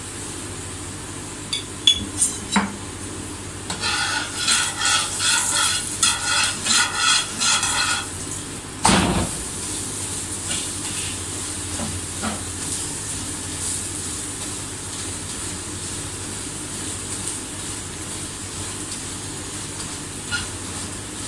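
Paratha frying in oil on an iron tawa, sizzling with a steady hiss. A metal spatula clicks against the pan about two seconds in, then works the paratha in quick rhythmic strokes, about two a second, for some four seconds, followed by one loud clank.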